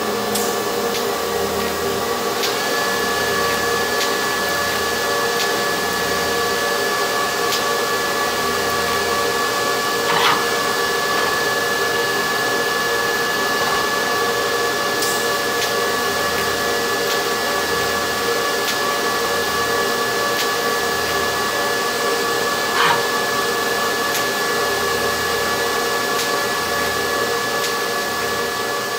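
TIG welding arc on stainless steel: a steady hiss with a high, even whine that comes in a couple of seconds in, and two faint ticks along the way.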